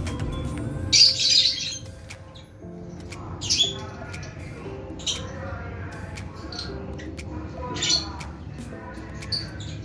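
Lovebirds giving short, shrill squawking calls every second or two, the loudest about a second in, over soft background music.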